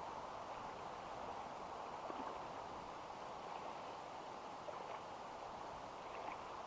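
Shallow river water flowing over stones, a steady even sound.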